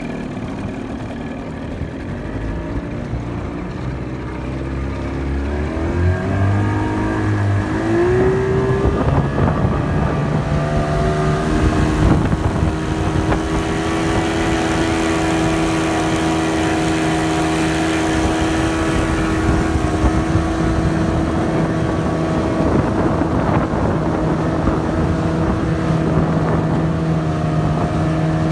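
Johnson 25 outboard motor driving a small aluminium boat. Its note climbs several seconds in as it picks up speed, then holds steady at a cruising pace.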